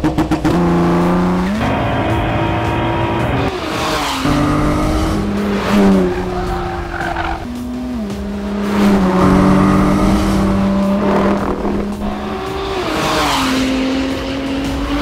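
Ford GT's twin-turbo 3.5-litre V6 driven hard, its note repeatedly climbing and then stepping down in pitch as it runs up through the revs and changes gear, with stretches held at steady revs.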